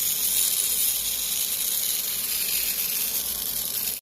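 Small electric motor running steadily with a high, hissing whir; it cuts off suddenly near the end.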